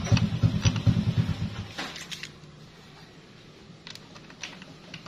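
A nearby engine's low, rapid pulsing fades away about one and a half seconds in. Then come a few light metallic clicks as the starter gear is pushed onto its shaft in the motorcycle engine's side case.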